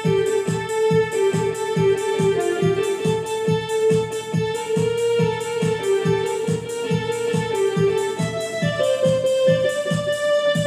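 Electronic keyboard played by hand: a slow melody of long held notes stepping between a few pitches, over a steady beat of about three strokes a second.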